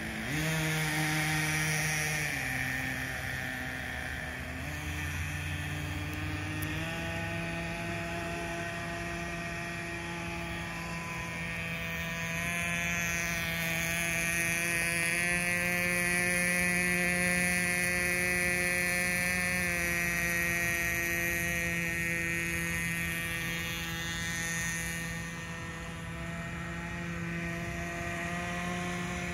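Nitro-fuel RC speedboat engine running, its revs shifting up and down over the first several seconds, then holding a steady pitch as the boat runs across the water.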